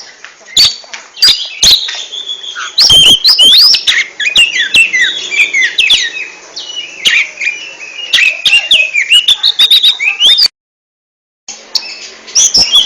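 Oriental magpie-robin (kacer) singing a fast, varied song of whistled notes sweeping up and down, with sharp clicks among them. The sound cuts out completely for about a second near the end, then the song resumes.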